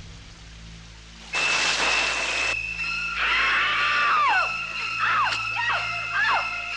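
Eerie trailer music and sound design. About a second and a half in comes a burst of hiss, then a sustained high tone with a series of sharp downward-sliding shrieks, over a low hum.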